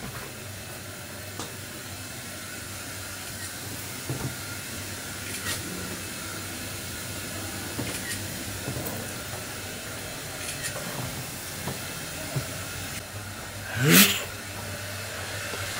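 Steady hiss with a low hum of room noise, with a few faint clicks scattered through. About fourteen seconds in, a brief loud burst of a man laughing.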